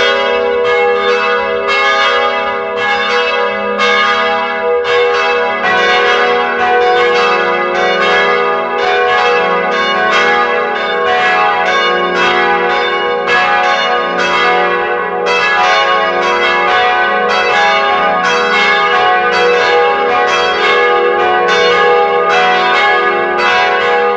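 Church bells ringing in a fast, continuous peal, with several overlapping strokes a second, each one ringing on.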